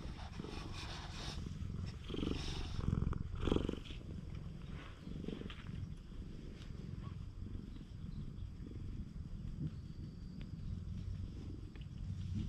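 Cat purring steadily, close up, while it lies on a lap and is stroked, with a few louder rustles about two to four seconds in.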